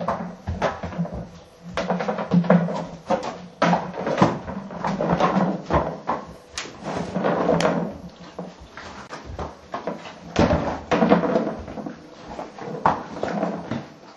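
Background music with percussion and irregular knocking beats.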